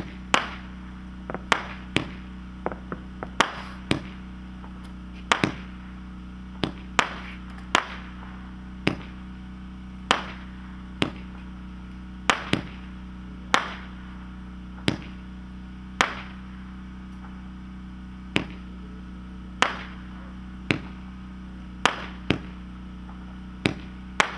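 A 25-shot consumer fireworks cake firing: a string of sharp launch thumps and aerial bursts about a second apart, each bang fading quickly.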